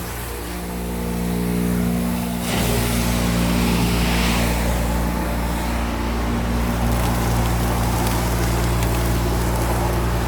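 Homemade industrial cyclone vacuum cleaner running with a steady motor hum; its tone shifts slightly about two and a half seconds in.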